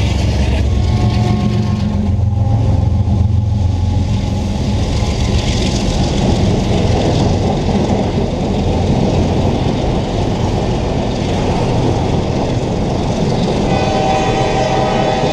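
A double-stack intermodal freight train passing close by. The low engine rumble of its GE diesel locomotives fades within the first few seconds and gives way to the steady rolling rush of steel wheels on rail as the well cars go by.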